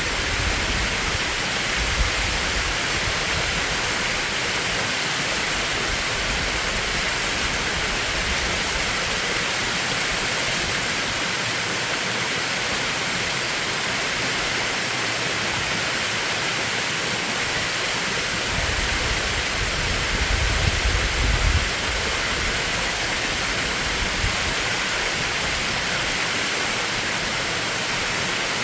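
Mountain stream rushing steadily over rocks in a rocky valley, as an even wash of water noise. A brief low rumble comes in near the start and again about two-thirds of the way in.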